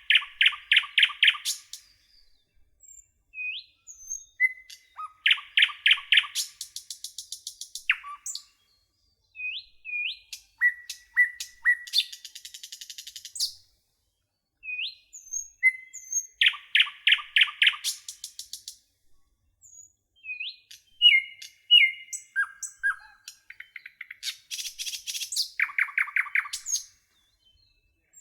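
Songbirds singing: short rising chirps and fast trills of about four repeated notes a second, in separate phrases a few seconds apart with brief silences between.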